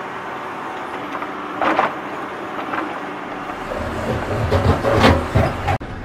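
Plastic toy dump truck pushed by hand through sand, its wheels and body scraping over grit in short bursts, with a low rumbling from about four seconds in.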